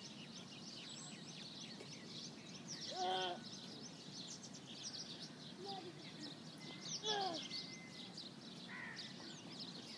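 Many small birds chirping, short quick downward notes overlapping steadily, over a low steady background hum. Two louder, harsher calls stand out, about three and seven seconds in.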